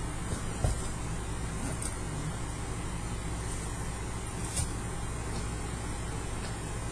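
Steady low rumble of background noise, with two faint short clicks, one about a second in and one near the middle.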